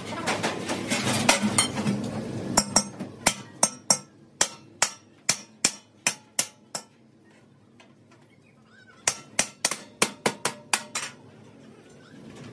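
Hammer blows on a steel tank end cap seated in the rolled steel shell of an air compressor tank, sharp strikes that ring with a metallic tone. After a second or two of metal clattering, the blows come two to three a second in two runs separated by a pause of about two seconds.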